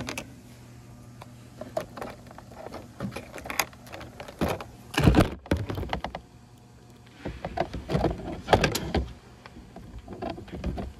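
Handling noise: irregular clicks, knocks and rustles as a small electrolytic capacitor and multimeter test leads are handled against a clear plastic case, with louder clusters of knocks about five seconds in and again around eight to nine seconds.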